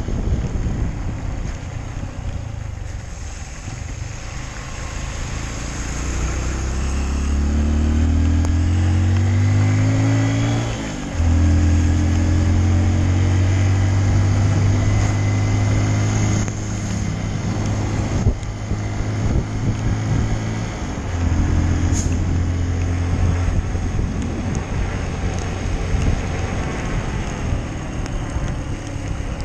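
Honda CRF150L's single-cylinder four-stroke engine pulling the bike along. Its revs climb for a few seconds, then drop suddenly as it shifts gear, and it runs steady before another drop in revs about two-thirds of the way through.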